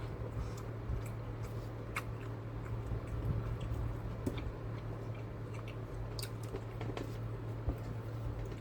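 Close-up chewing of a soft rice, bean and tomato-sauce burrito in a soft tortilla wrap, with scattered wet mouth clicks and squishes. A steady low hum runs underneath.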